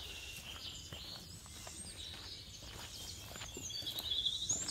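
Footsteps of a hiker on a rocky dirt trail at a steady walking pace, with forest birds chirping overhead and a short rapid bird trill near the end.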